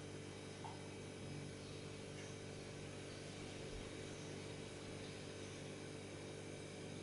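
Faint, steady low hum over quiet room tone.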